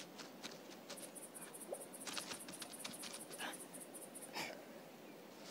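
Quiet forest ambience: insects chirping in a rapid, even high-pitched pulse of about five a second, with scattered faint light taps.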